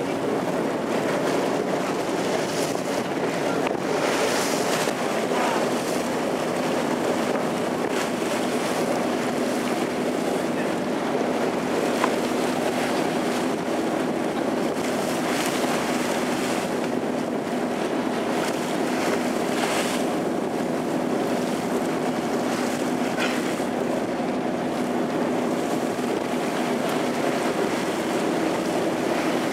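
Small open motorboat under way: its engine runs with a steady hum while the hull pushes through choppy water, spray rushing along the side with a few louder splashes, and wind buffeting the microphone.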